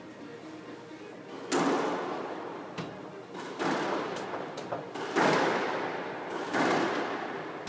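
A squash rally: the ball is struck hard four times, about one and a half seconds apart, each sharp hit echoing briefly in the court, with fainter ticks in between.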